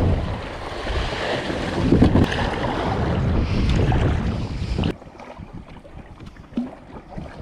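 Sea water splashing and rushing against a fishing kayak's hull as it is launched and paddled off, with wind buffeting the microphone and a loud surge of splash about two seconds in. The noise cuts off suddenly about five seconds in, leaving only a faint hiss.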